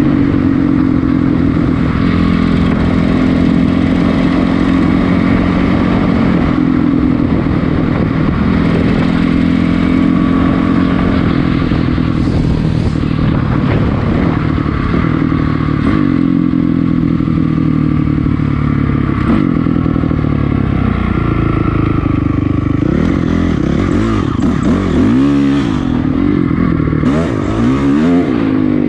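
2006 Honda CRF450R's single-cylinder four-stroke engine running as the dirt bike is ridden, its pitch rising and falling with the throttle, with quick revs and drops in the last few seconds.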